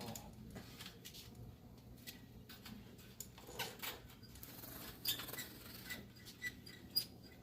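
Scattered light clicks and taps of tools and small parts being handled while a dirt bike's rear wheel is put back together, with a few short high squeaks near the end.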